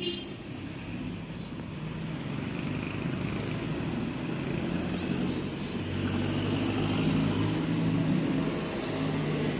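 A motor vehicle engine running, a low hum whose pitch shifts slightly and which grows louder over the first several seconds, then holds.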